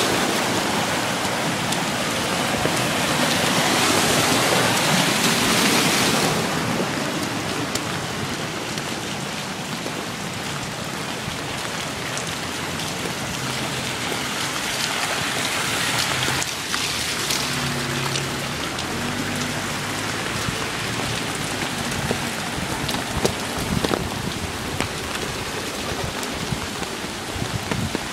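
Heavy typhoon rain with wind: a dense, steady rushing noise, loudest for about the first six seconds and then easing somewhat.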